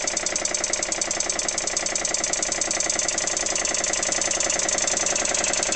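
Vintage Dunlop twin-stage piston air compressor running under load, a steady, rapid, even pulsing of its pistons as it pumps the tank back up after air was let off.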